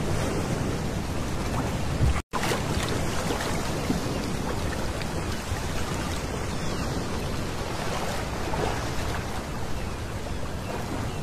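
Small waves breaking and washing over a pebble beach in a steady hiss, with some wind on the microphone. The sound cuts out for a split second about two seconds in.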